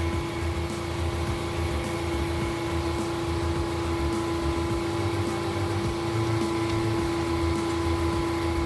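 Sawmill machinery running steadily: a constant hum with a steady tone over a noisy rumble.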